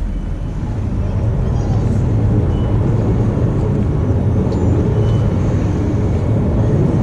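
Ferry's engine running with a steady low rumble, growing louder about a second in.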